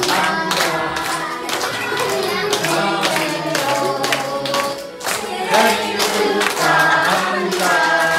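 A small group singing a birthday song together, with hands clapping along.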